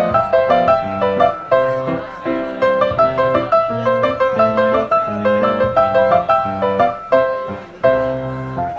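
Background piano music: a light melody of short notes in quick, even succession.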